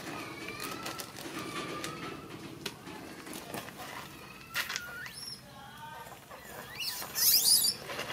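Baby monkey giving high, wavering coo calls that glide up and down, with a loud, shrill burst near the end.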